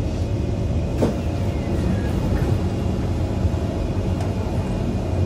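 Inside a Kawasaki C151 MRT car standing at a platform: a steady low hum of the train's equipment, with a sharp knock about a second in as the doors open, followed by a faint falling whine.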